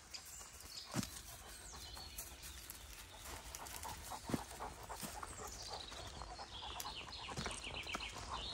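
Footsteps of a walker and a Greater Swiss Mountain Dog rustling through dry leaf litter on a forest path, with two sharp clicks, about a second in and again about four seconds in. Near the end a bird sings a descending trill.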